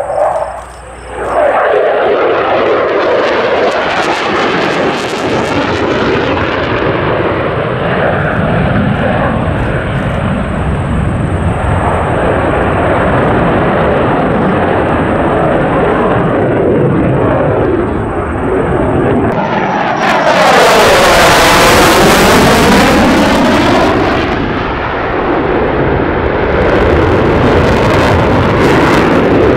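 Fighter jet engines running at high power through low airshow passes: continuous, loud jet noise. About two-thirds of the way through, it swells to its loudest with a sweeping, phasing whoosh as an F-22 Raptor in afterburner passes close.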